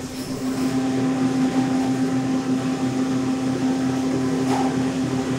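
Steady low machine hum with a strong single tone, from the plant's refrigeration or freezer equipment, and a brief knock near the end.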